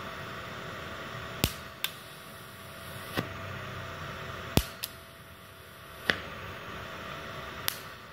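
Manual scratch-start TIG torch being struck on a steel plate: seven sharp, short snaps, about a second apart, as the tungsten touches the plate and the arc flashes and breaks, over a steady hiss.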